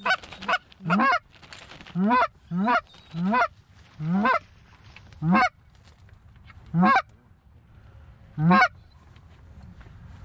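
Goose call blown in a run of loud Canada goose honks, each rising in pitch, several in quick succession at first and then slowing to one every second or so, calling to incoming geese.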